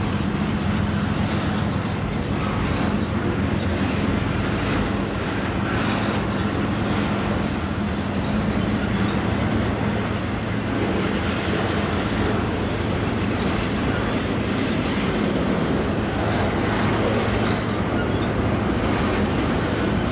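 Double-stack container freight cars rolling past close by, their steel wheels running steadily over the rails with a continuous rumble.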